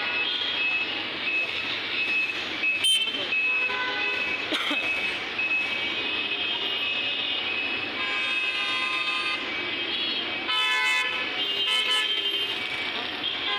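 Road traffic with car horns honking now and then, the horn notes coming in short toots and a few longer blasts.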